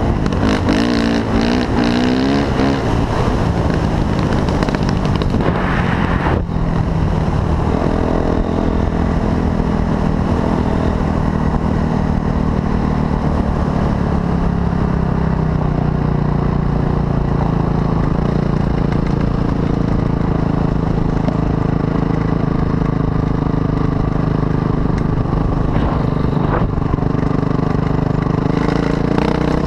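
Honda CRF450 dirt bike's single-cylinder four-stroke engine running under way, its pitch rising and falling with the throttle for the first few seconds. After an abrupt break about six seconds in, it holds a steadier cruising note.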